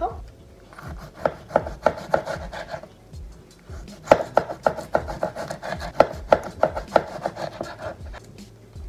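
Knife slicing a tomato on a cutting board: a run of quick, even taps, about three a second, in two bursts with a short pause about three seconds in.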